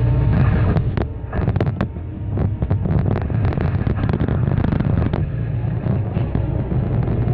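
Excavator engine and hydraulics running steadily, with a run of sharp cracks and clatter from about one to five seconds in as the Cat MP318 multi-processor jaws work the concrete and pipe.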